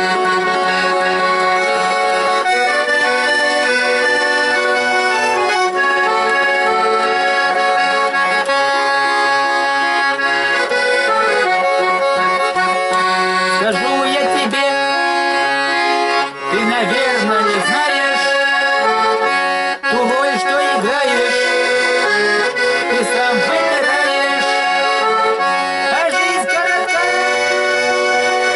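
Instrumental break of a song led by accordion, playing sustained chords and a melody that change every couple of seconds.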